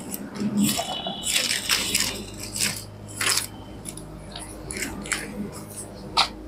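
Irregular crisp rustles and flicks of thin paper, Bible pages being leafed through to look up a verse, over a faint steady low hum.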